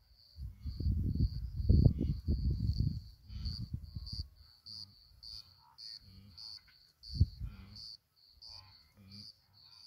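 An insect chirping steadily at a high pitch, about two chirps a second. A loud, muffled low rumble covers the first four seconds and comes again briefly around seven seconds in.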